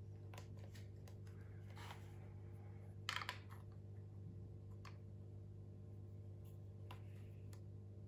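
Faint small clicks and scrapes of a pointed tool picking packed dust out of a Dyson V15 carpet cleaner head's plastic brush-bar housing, with a cluster of sharper clicks about three seconds in. A steady low hum runs underneath.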